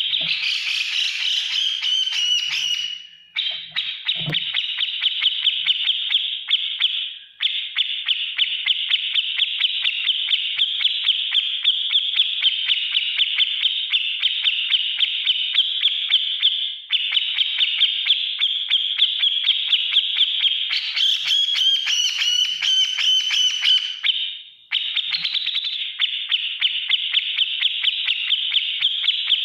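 Grey-cheeked bulbul (cucak jenggot) giving its rapid, harsh chattering call, a near-continuous stream of quick buzzy notes broken by a few brief pauses. Shriller, higher passages come in at the start and again about three-quarters through.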